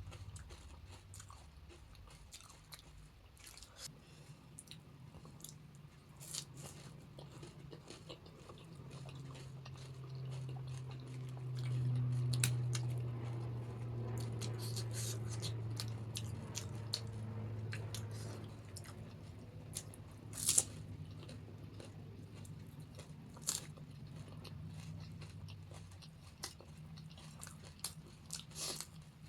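Close-up eating sounds: crisp panipuri shells filled with chips and bhuja crunching and being chewed, with sharp crunches scattered throughout. A low steady hum swells for several seconds in the middle.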